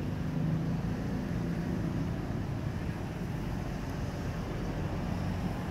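Steady low outdoor rumble with a faint hum in it; no monkey calls or other distinct sounds stand out.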